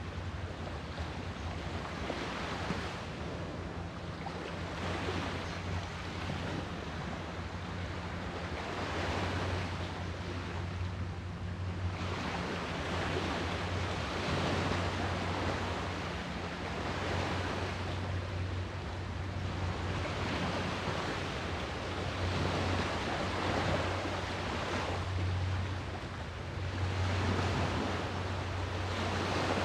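Sea waves washing onto the shore, each one swelling up and falling back every two to three seconds, over a steady low rumble.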